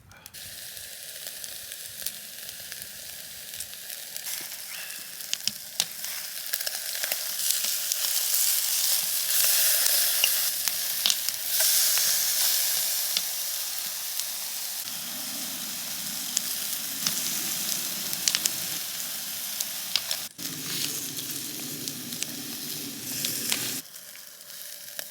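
Meat sizzling and crackling over charcoal on a Japanese ceramic konro grill: a steady hiss with many small pops, growing louder partway through. A low hum joins it in the second half and stops shortly before the end.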